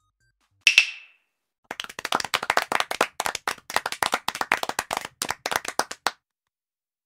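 A single sharp hit with a short ring, then hands clapping rapidly for about four seconds, stopping abruptly.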